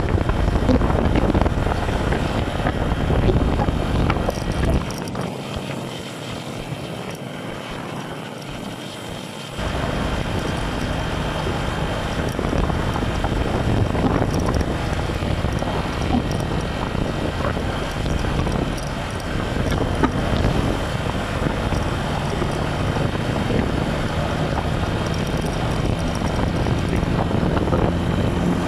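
Motorcycle riding noise: wind buffeting a phone microphone in a holder, over a steady engine and road rumble. About five seconds in the rumble drops away and the sound gets quieter for about four seconds, then it comes back at full level.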